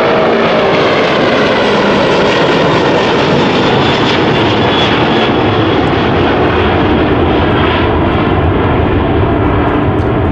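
Boeing 747-400's four turbofan engines at takeoff thrust, a loud steady roar as the jet lifts off and climbs away, its tone drifting slowly lower.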